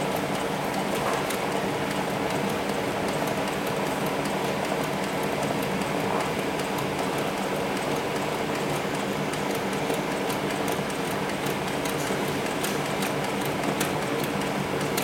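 Hightex 7273BV walking-foot industrial sewing machine, driven through a speed reducer, running steadily as it stitches through a thick 40 mm webbing sling: an even mechanical hum with a fine rapid ticking of needle strokes.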